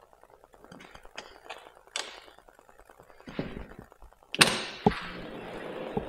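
Glass balcony door being worked open: a few light clicks of the handle, then a sharp thunk from the door about four and a half seconds in, followed by a steady hiss of outdoor air.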